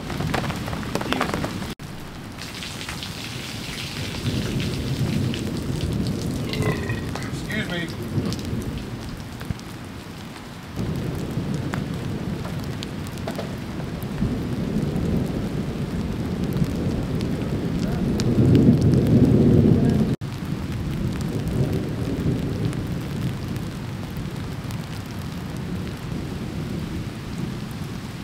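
Steady rain falling with low rolls of thunder; the loudest, longest rumble comes about two-thirds of the way through.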